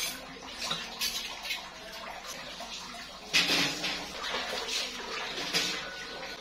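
Donuts deep-frying in hot oil: a steady sizzle with scattered crackles and a louder burst about three seconds in.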